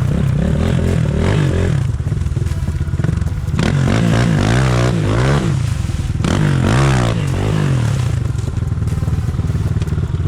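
Single-cylinder enduro motorcycle engine running under light throttle, with two stretches of revving where the pitch rises and falls repeatedly, about three and a half and six seconds in.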